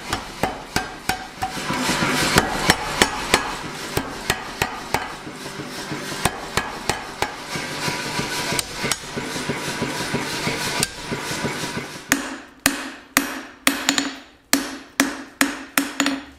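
A power hammer pounds a hot steel bar in rapid, continuous blows, drawing it out into a handle. About twelve seconds in, this gives way to separate hand-hammer blows on the bar at the anvil, about three a second.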